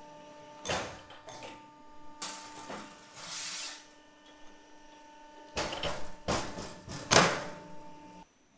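Long fishing-rod blanks sliding through and knocking against a steel jig: a few sharp knocks, a scraping slide, then a cluster of clatters with the loudest near the end, over a steady machine hum.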